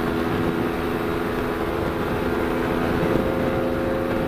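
CFMoto NK400 parallel-twin engine running at a steady cruising speed, its pitch holding level, with wind rush underneath.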